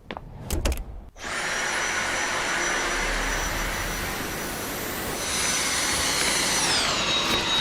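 A few clicks, then a vacuum cleaner switches on about a second in and runs steadily with a high motor whine. The whine drops in pitch near the end as the motor slows.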